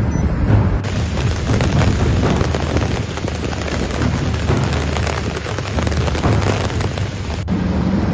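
Heavy rain and rushing storm water: a loud, dense rushing noise with a deep rumble underneath. The sound changes abruptly about a second in and again near the end.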